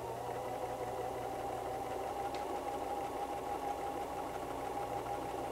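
White 1735 electric sewing machine running steadily, stitching the left side of a buttonhole in a close, narrow zigzag, its motor giving a steady whine.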